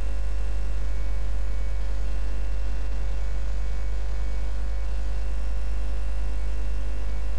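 Steady low electrical mains hum with a light background hiss.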